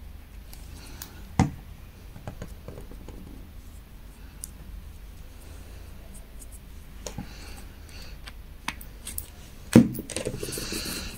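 Quiet handling sounds of hands working a small crochet piece and tools on a table: faint scratching and rustling with scattered light ticks, a sharper knock about a second and a half in and another near the end, followed by a brief hiss.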